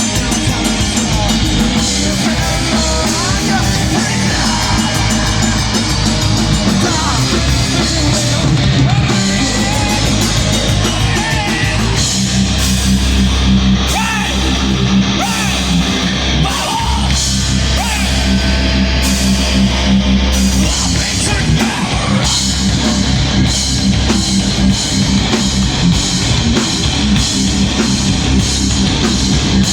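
Heavy metal band playing live: loud, dense distorted guitars and drums, with the low end growing heavier and more sustained from about twelve seconds in until about twenty-one seconds.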